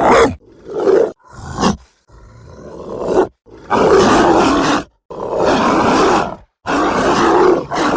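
Zombie dog sound effect: a run of about seven harsh, monstrous dog barks and growls separated by short silences. The first few are short, one swells in loudness, and the last three are each drawn out for about a second.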